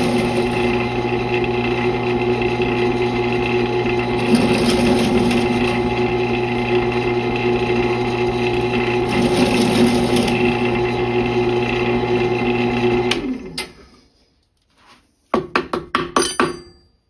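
Bench drill press motor running steadily with a brad point bit, cutting countersink holes into a brake lining block. The cutting noise rises twice, about 4 s and 9 s in, and the motor is switched off and winds down about 13 s in. Near the end comes a quick string of sharp knocks.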